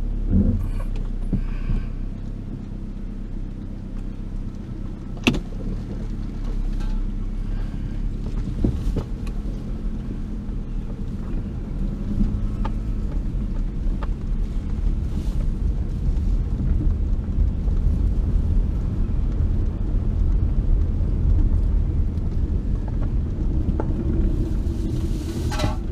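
Engine and road noise inside a 2005 Toyota Camry's cabin as the car drives, a steady low rumble that grows louder as it gathers speed. A sharp click comes about five seconds in, with a few lighter knocks after it.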